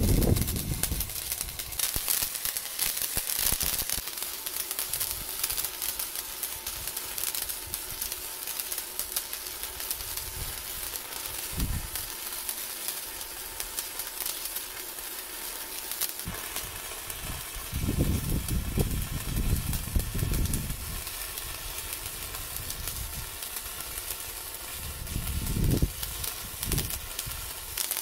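Stick (MMA) welding arc with the electrode burning: a steady crackling sizzle that goes on through the whole stretch. Low rumbles come and go a few times, longest in a stretch about two-thirds of the way in.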